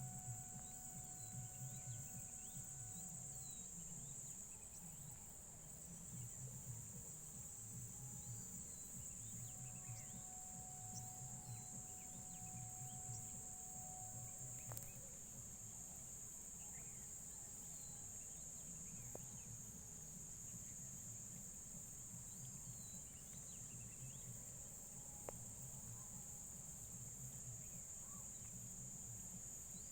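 A steady, high-pitched insect chorus runs throughout, with a low rumble underneath and scattered faint short chirps.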